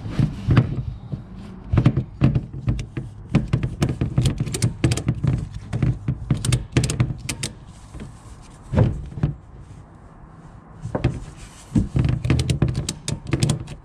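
Irregular clicks, knocks and thumps of a cargo tie-down strap and its metal hooks being handled and adjusted against a floor tie-down point.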